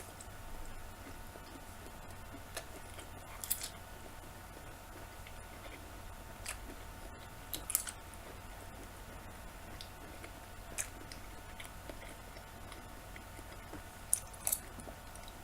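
A person chewing champignon mushrooms, quietly, with short clicks from the mouth every few seconds.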